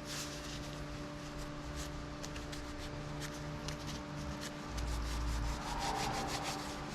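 Cloth shop towel rubbing and wiping engine oil off hands, a quick run of rough scrubbing strokes, over a steady low hum.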